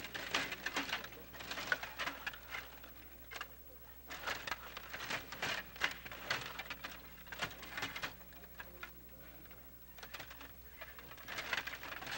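Clatter of a Stiga table hockey game: rapid clicks and knocks from the rods being pushed and twisted and from the puck striking the players and the plastic boards. It comes in bursts with short lulls in between.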